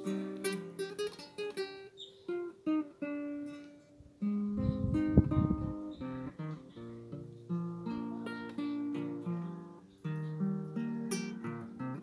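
Acoustic guitar improvising a plucked melody of single notes and ringing chords. About four seconds in, a loud low rumble lasting about a second and a half covers the playing.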